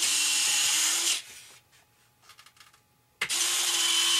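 Electric retract unit of an RC model jet driving the landing-gear leg, run twice: a little over a second of steady motor whine that rises slightly in pitch, stopping about a second in and starting again about three seconds in.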